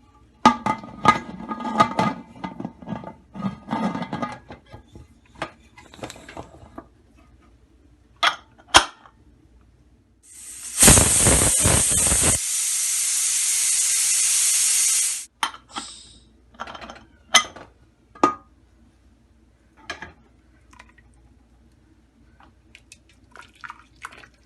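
Metal pot and lid clinking, then a pressure cooker venting steam in a loud, steady hiss for about five seconds that stops abruptly, followed by a few light clicks.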